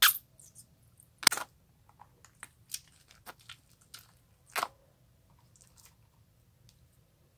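Glossy slime being worked by hand, giving a run of sharp clicks and pops, the loudest three at the start, about a second in and about four and a half seconds in, fading to faint ones near the end.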